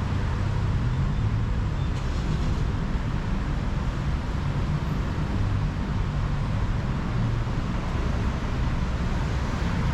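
Steady road traffic: the engines and tyres of passing vehicles make a continuous low rumble.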